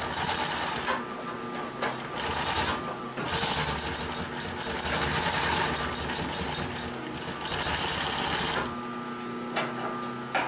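Consew 744R-30 walking-foot (triple-feed) industrial sewing machine stitching through a thick stack of leather and webbing layers. It runs in a few spurts with brief pauses and stops about nine seconds in, followed by two short clicks.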